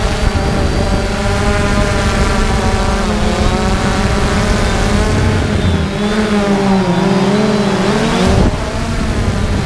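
3DR Solo quadcopter's electric motors and propellers whining and droning, heard close up from the drone itself over a low rushing noise. The pitch of the whine dips and climbs again about six seconds in.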